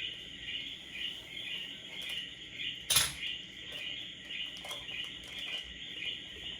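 Steady, high-pitched chirring chorus of insects, pulsing continuously. About three seconds in there is a single sharp click, the loudest sound.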